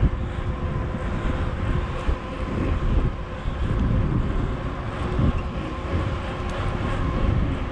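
Wind buffeting the microphone of a camera riding on a moving mountain bike: a loud, uneven low rumble, with a faint steady hum.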